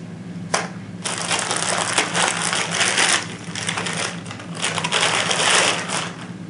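A light click about half a second in, then a clear plastic bag crinkling and rustling for about five seconds as it is pulled off an air pistol.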